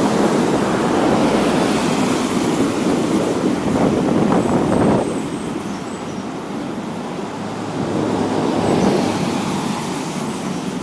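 Road traffic: cars passing on wet asphalt, their tyre and engine noise rushing loud and then dropping away about halfway through, swelling again as another car goes by near the end.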